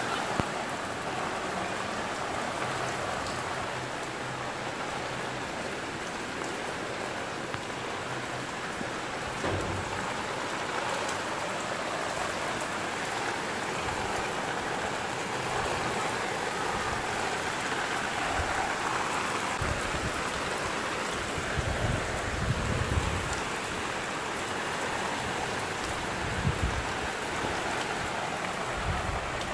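Heavy rain falling steadily, a constant even hiss of rain on the terrace and roofs, with a few low rumbles in the second half.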